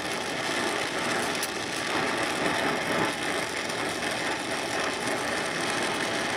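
Low-pressure oxyacetylene torch (DHC 2000 Cobra) burning with a steady hiss. Its fine, low flame is heating a snapped steel bolt stuck in an aluminum starter housing, to expand it and break the bolt free.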